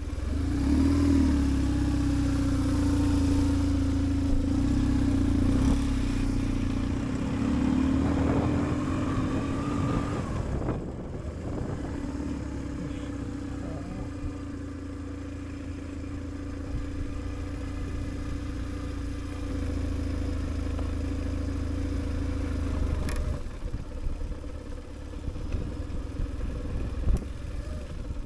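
BMW R1150GS boxer-twin motorcycle engine running at low revs, louder for the first ten seconds or so, then settling to a lower steady run, with a single sharp click about 23 seconds in.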